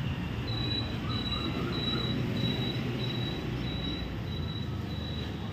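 A high, even chirp repeating about two or three times a second over a steady low rumble.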